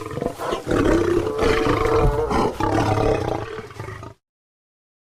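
Demon bear roar sound effect: a long, rough monster roar with a deep growling undertone. It fades a little near the end and cuts off abruptly about four seconds in.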